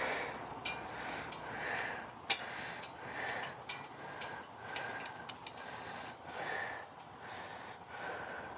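Repeated short scraping strokes, about one or two a second, with sharp clicks between them, as screws are worked loose from a ceiling fan's mounting brackets.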